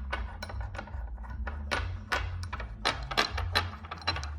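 Small metal pieces of a hand tap and die set clicking and clinking as they are handled, in quick irregular clicks over a low steady hum.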